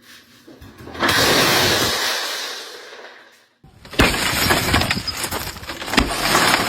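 Glass shattering twice. The first crash comes about a second in and fades away over two seconds or so; the second break comes about four seconds in and carries on as a dense run of small cracks and clicks.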